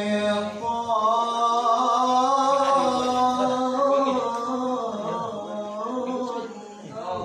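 A man recites the Qur'an in the melodic tilawah style into a handheld microphone. His voice draws out long held notes that step and turn slowly in pitch, and it fades briefly near the end.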